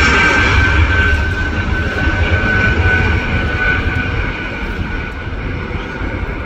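Airbus A220-300's Pratt & Whitney PW1500G geared turbofans at takeoff power on the takeoff roll: a loud jet roar with a high, steady whine, fading gradually as the aircraft pulls away down the runway.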